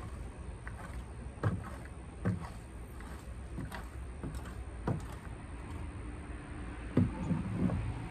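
Long-handled garden tool scraping and knocking against the wooden chicken coop as it is cleaned out, in irregular sharp knocks with a quick cluster near the end, over a steady low rumble.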